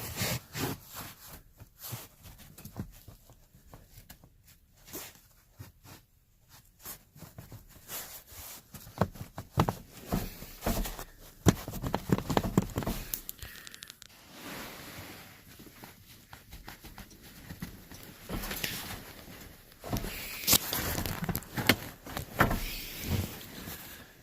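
Plastic clicks, knocks and scraping from an armrest being worked onto its mount, its clips pushed against the grooves. The knocks are irregular, with the loudest ones in the middle and near the end.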